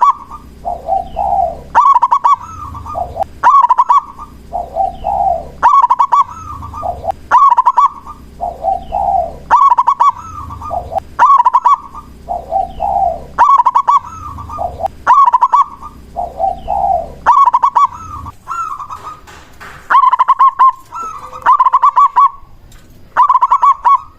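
Zebra dove (perkutut) cooing its song. Each phrase is a lower note followed by a higher stuttering trill, repeated about every two seconds. From about 18 seconds in the rhythm breaks up and higher chirping notes join in.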